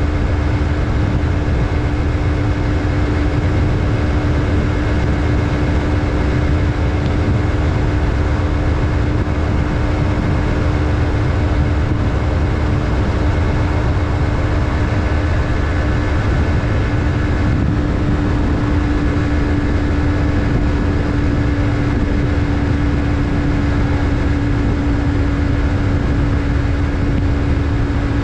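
Yamaha MT-03's parallel-twin engine running at a steady, unchanging pitch, with a strong low rumble underneath.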